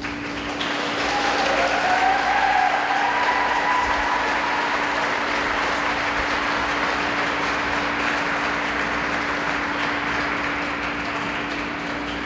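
Spectators applauding and cheering after an ice dance performance. The applause swells over the first couple of seconds, with a few cheers on top, then slowly dies away.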